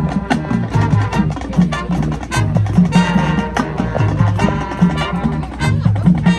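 High school marching band playing a loud, up-tempo passage: brass over a driving, rhythmic bass line, with frequent drum and percussion strikes.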